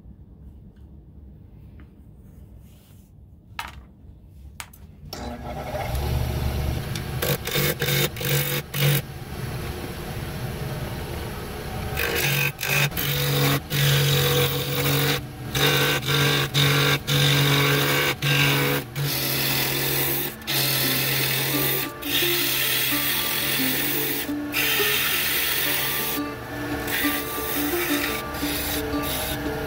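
Background music over a wood lathe, a turning tool cutting the spinning cherry blank in runs with short breaks, starting about five seconds in after a few light knocks.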